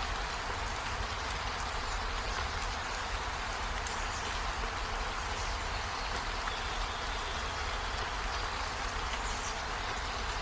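Steady rainfall: an even hiss of rain with a low rumble beneath it.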